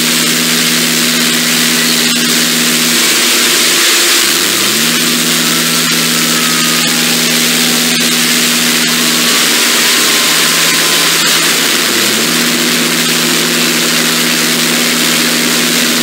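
Mock emergency alarm: a low chord of several steady tones that swoops up quickly and holds for several seconds, sounding three times, over loud constant static-like hiss.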